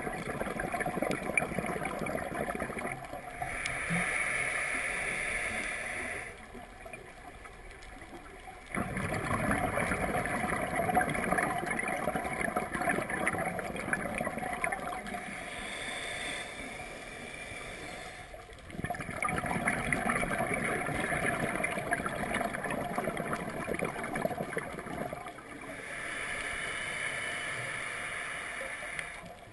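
Underwater sound of a scuba diver breathing through a regulator: bubbling, gurgling exhalations in long stretches, broken by a few quieter pauses.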